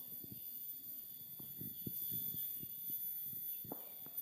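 Insects buzzing steadily at several high pitches, with a short chirp repeating several times a second, over irregular low thumps.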